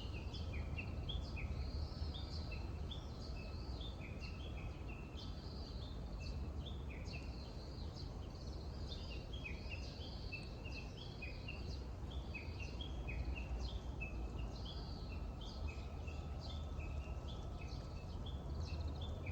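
Birds calling: many short, repeated, falling chirps that overlap throughout, over a steady low background rumble.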